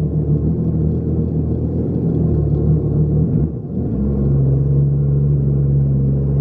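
Jet ski engine running with a steady low drone. It wavers and dips briefly about halfway through, then settles back to a steady pitch.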